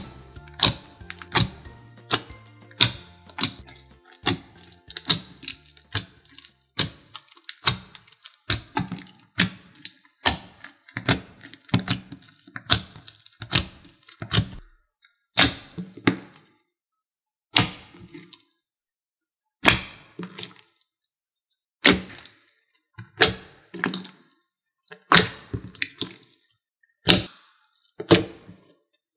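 Clear glitter slime being squished and folded by hand in a glass dish, giving a sharp pop or click every half second to a second. Soft background music fades out in the first few seconds.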